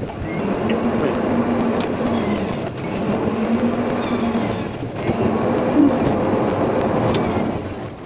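Golf cart driving along a street: a steady low motor hum over tyre and wind rush, easing off briefly about halfway through.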